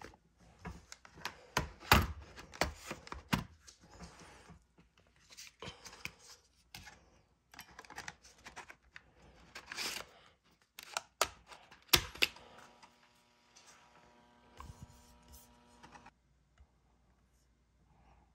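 Plastic clicks and handling as a USB plug is pushed into an adapter and a 3.5-inch floppy disk is slid into an IBM USB floppy drive, with a sharp click about 12 seconds in. Then a steady hum for about four seconds as the drive spins the inserted disk.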